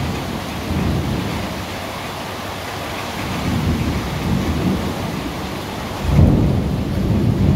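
Tropical thunderstorm: rain falling steadily with thunder rumbling low underneath. A louder rumble sets in suddenly about six seconds in.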